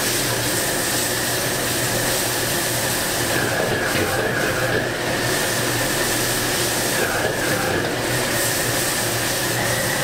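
Commercial gas wok burner running at high flame with a steady roar, a constant high whine running through it. Pork sizzles and is stirred with a ladle in a wok over the burner.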